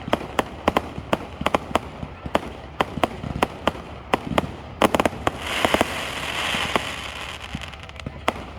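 Fireworks going off: a rapid series of sharp bangs, two or three a second, with a stretch of dense crackling from about five to seven and a half seconds in.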